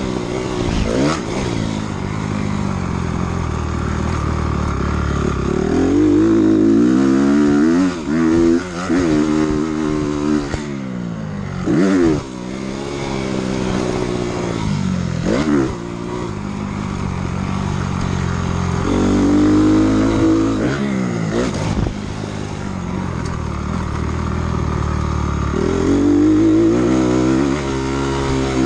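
Honda CRF250R dirt bike's four-stroke single-cylinder engine, ridden hard: it revs up and down over and over as the bike accelerates and slows. Several times the throttle is cut off suddenly for a moment before it picks up again.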